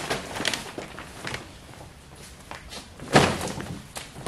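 Handling noise from a comforter set in a clear plastic bag being lifted off a stack of boxes and set on a table: light rustles and knocks, with one louder thump a little after three seconds in.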